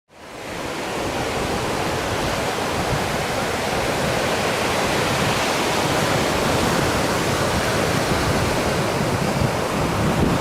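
Steady rushing noise of ocean surf, fading in over the first second and then holding even, without distinct wave breaks.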